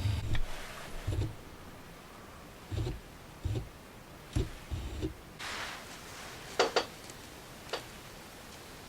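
Autofocus drive of a Sony SAL35F18 35mm f/1.8 lens: a series of short, low motor whirs as the focus racks back and forth, about seven in the first five seconds. A brief hiss follows, then a few sharp clicks.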